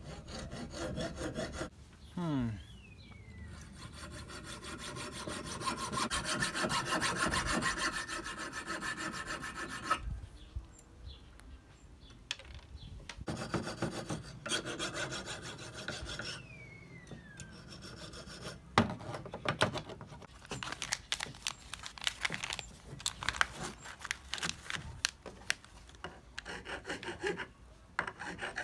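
Saw strokes cutting the excess brass pins off a knife handle, a rhythmic metal-on-metal rasping that rings with a pitch through the longer stretch of sawing, then comes in shorter, choppier strokes. A brief falling whistle-like glide sounds about two seconds in and again about midway.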